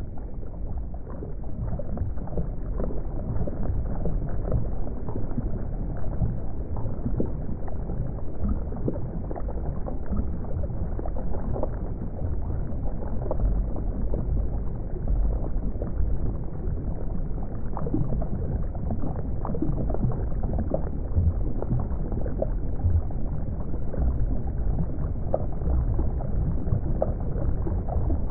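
Steady, muffled water noise weighted to the low end, with faint crackles and pops running through it: an underwater or aquarium water ambience.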